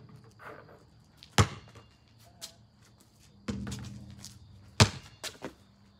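Basketball shots at an outdoor hoop: two sharp, loud thuds of the ball bouncing, about three and a half seconds apart, with a rattling hit of the ball on the rim and backboard between them, plus a few lighter bounces.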